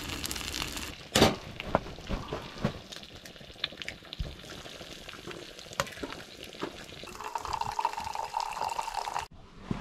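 Sausages sizzling in a frying pan on a wood stove, with several sharp taps and clinks of a pan and utensils. Near the end, hot coffee is poured from a pot into a mug, a steady pouring sound that stops abruptly.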